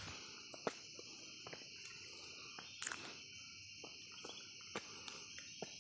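Steady, high-pitched chorus of rainforest insects such as cicadas and crickets, with scattered short clicks and snaps over it. The loudest snaps come about a second and three seconds in.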